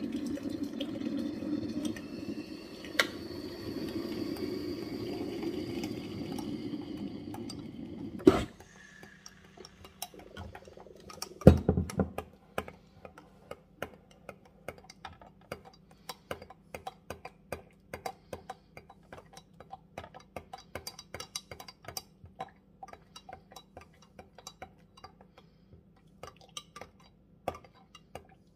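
Hot water running from a Breville hot water dispenser into a glass measuring jug of dry stuffing mix for about eight seconds. A sharp knock follows, then a louder clatter a few seconds later. Then a spoon stirs the stuffing, clinking against the glass jug in quick, regular taps.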